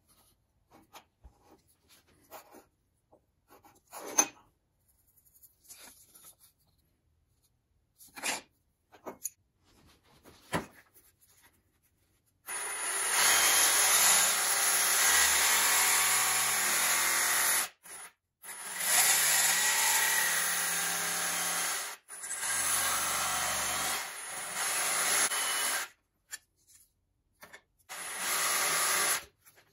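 Ridgid cordless jigsaw cutting thin plywood, starting a little before halfway and running in three long stretches with brief pauses, then one short final cut near the end. Before the cutting there are only small knocks and scrapes of tools and wood pieces being handled on the bench.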